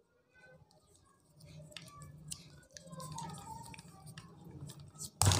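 Black PVC electrical insulating tape being pulled off its roll and wound around a twisted wire joint: faint peeling crackles, clicks and rustling, starting about a second and a half in.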